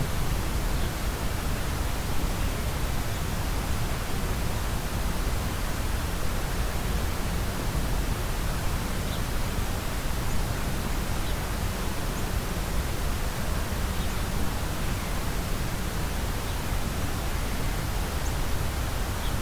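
Steady outdoor background noise with a low rumble, even throughout and with no siren sounding.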